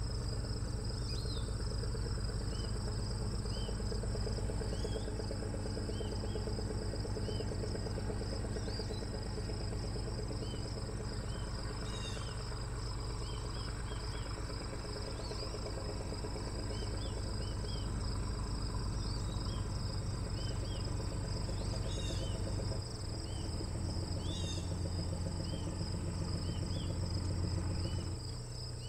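Steady insect chorus: a continuous high, pulsing trill with short high chirps scattered through it, over a low steady rumble.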